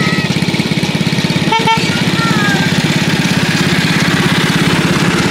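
Small engine of a 7¼ inch gauge miniature locomotive running steadily with an even pulse as it hauls a passenger train. A brief beep comes about one and a half seconds in.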